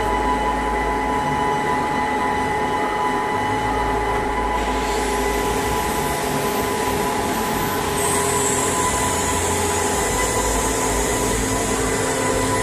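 A 16K20 screw-cutting lathe running under power, its motor and headstock gears making a steady mechanical hum. A high whine comes in a little under halfway through and drops in pitch about two-thirds of the way through.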